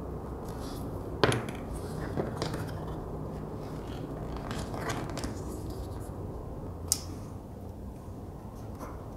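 Hands handling leather pieces and a wooden-handled tool on a cutting mat: light rubbing and shuffling with a few sharp clicks and taps, the loudest about a second in and another short one near seven seconds.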